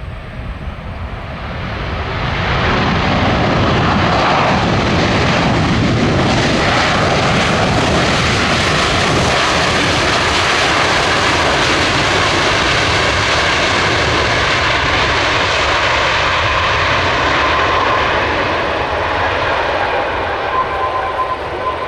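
A Boeing 737-800 airliner's CFM56 jet engines, loud as the jet lands and rolls out on the runway. The sound swells over the first couple of seconds, holds steady, and eases off a little near the end.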